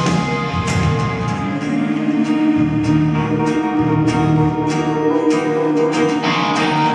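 Live country band playing on electric guitars, bass and drums, with sustained guitar notes and cymbal strikes on a steady beat.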